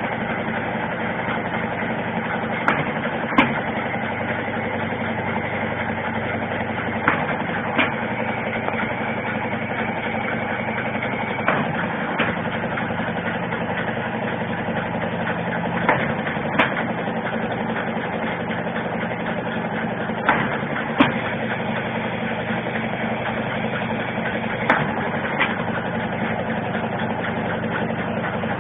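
Eye drop bottle cap sealing machine running with a steady mechanical hum, its mechanism giving a pair of sharp clicks under a second apart about every four and a half seconds.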